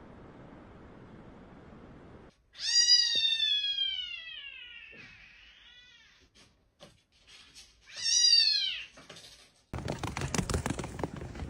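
A domestic cat meowing twice: a long, drawn-out meow falling in pitch, then a shorter one a few seconds later. A loud, noisy sound follows near the end.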